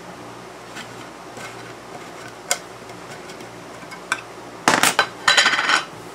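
Metal lid of a lacquer can being pried off: a few sharp metallic clicks as it is worked loose, then a loud clatter and scrape of metal on metal near the end as the lid comes free and is set down.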